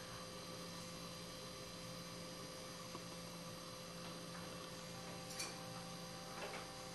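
Steady faint electrical hum, mains hum on the recording, with a faint click about five seconds in.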